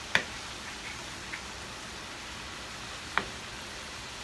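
Shrimp sizzling in a butter, garlic and lemon sauce in a nonstick pan, a steady hiss, with a wooden spoon knocking against the pan twice, just after the start and about three seconds in.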